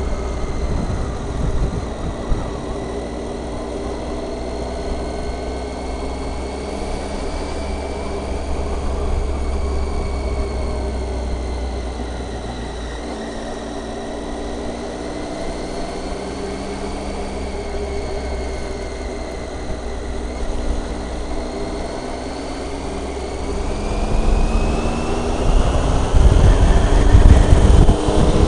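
Triumph Tiger 800's three-cylinder engine running under way at a steady cruise, its note drifting gently up and down. Near the end it rises and gets louder as the bike accelerates, with a heavier low rumble from wind on the microphone.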